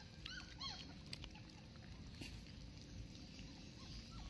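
Puppies eating curd from a steel bowl, with faint lapping and smacking. About half a second in, two short, high, squeaky whimpers rise and fall.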